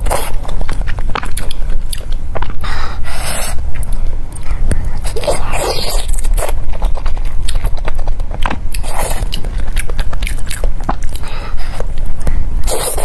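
Close-miked eating sounds: noodles being slurped, and bites and wet chewing of soft braised pork belly, with many small mouth clicks and a few longer slurps every few seconds.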